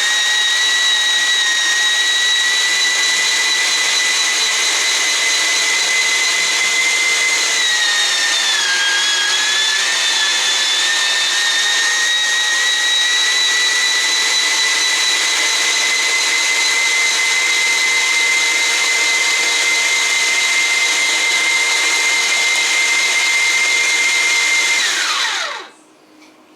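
Keenstar JSMG203 electric meat grinder's motor running with a steady high whine. Its pitch dips briefly about eight seconds in and recovers. Near the end it is switched off and winds down, the whine falling in pitch until it stops.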